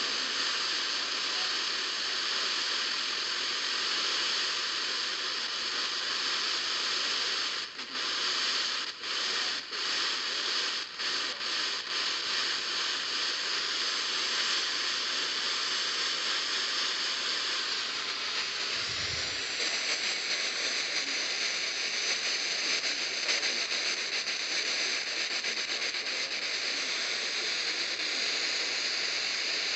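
Radio static: a steady hiss from a weather radio receiver with no clear signal, dropping out briefly several times between about eight and twelve seconds in.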